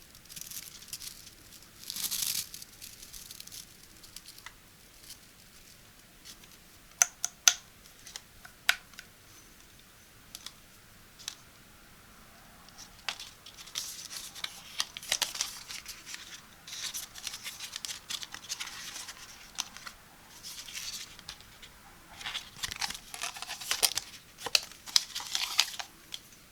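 Product packaging being opened by hand: on-and-off rustling, crinkling and tearing, with a few sharp clicks about a third of the way in.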